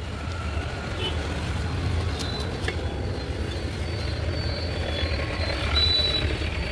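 Steady low rumble of road traffic, with a few faint taps.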